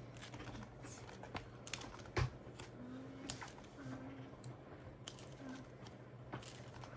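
Light clicks and paper-and-plastic rustling of cash and a savings binder being handled on a tabletop, with one heavier thump about two seconds in. A faint voice murmurs briefly a few times.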